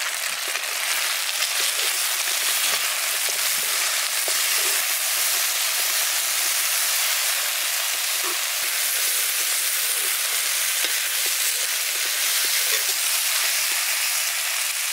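Chicken feet frying in hot oil in a wok, a steady sizzle with small crackles, as they are stirred with a metal spoon.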